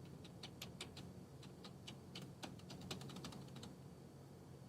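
Faint, irregular clicking of a computer's keys and mouse while an online form is being filled in. The clicks come quickly and stop about three and a half seconds in.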